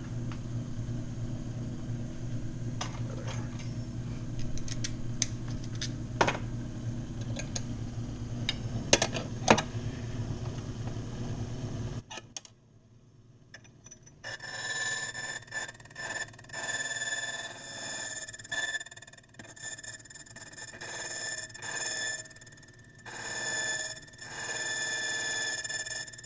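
Repaired key machine's electric motor running with a steady hum, with a few scraping clicks of metal, then switched off abruptly about twelve seconds in. After a short pause, a high-pitched ringing tone comes in repeated on-off pulses.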